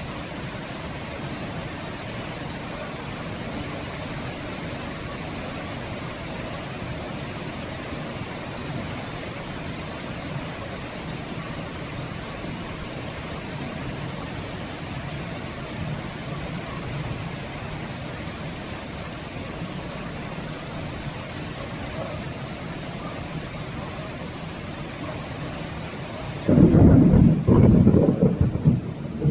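Steady rain falling, with a sudden loud clap of thunder near the end that rumbles on in uneven waves.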